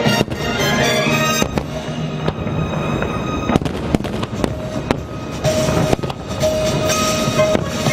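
Fireworks exploding in a rapid, irregular series of sharp bangs and crackles, over loud orchestral show music.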